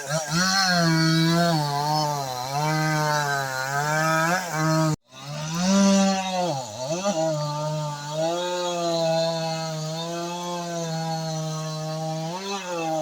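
Vevor 62cc two-stroke chainsaw with a 20-inch bar cutting wood, its engine speed rising and dipping under load. It cuts off abruptly for a split second about five seconds in. When it returns, the engine briefly bogs down and then picks back up.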